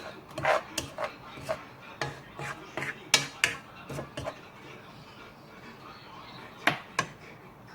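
Utensils clinking and knocking against dishes, a quick run of short clicks and taps, then a pause and two more knocks near the end.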